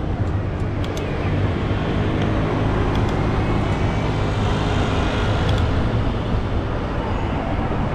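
Steady road traffic noise on a wide city street: a low rumble with a hiss above it, and a few faint ticks.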